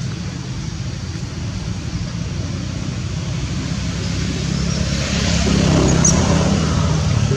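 Steady low rumble of outdoor background noise, swelling louder about five to six seconds in.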